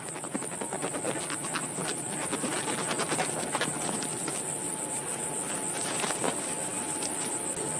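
Steady high chirring of insects, likely crickets, with scattered light clicks and rustling handling noises over it.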